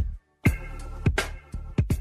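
Hip-hop beat playing without vocals: sharp drum hits over a steady bass line and held chords, dropping out to silence for a moment just after the start.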